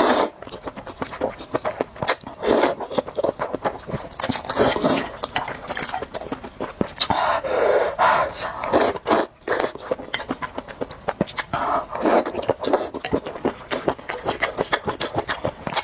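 Close-miked eating of spicy noodle soup: slurping and chewing, with many small wet clicks and smacks and a few longer slurps.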